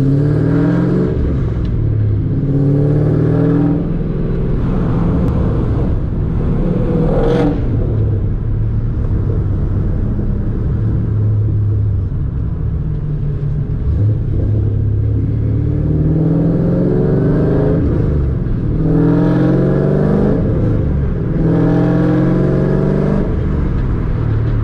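Ford 347 stroker small-block V8 with Holley EFI, heard from inside the car's cabin, accelerating through the gears. The engine note climbs and drops back at each shift, several times over, with a steadier cruising stretch between the two runs.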